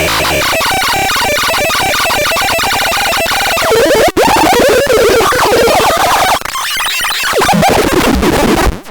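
Dense, chaotic synthesized electronic sound: layered warbling, gliding tones over a noisy wash. It drops out for an instant about four seconds in and stops abruptly at the end.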